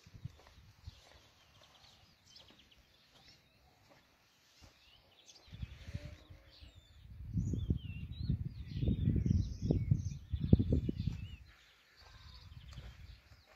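Small birds chirping and calling, with wind buffeting the phone's microphone as a low rumble for several seconds in the middle.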